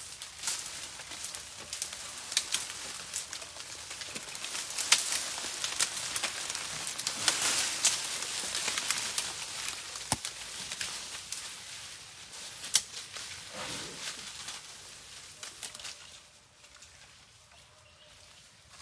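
Asian elephant feeding in dense undergrowth, pulling at vines and foliage with its trunk: steady rustling of leaves with many sharp snaps of twigs and vines. It is loudest in the middle and dies down after about sixteen seconds.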